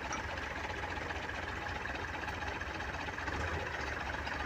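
Four-cylinder diesel engine of a Belarus MTZ tractor, an '80' engine, running steadily with an even low rumble.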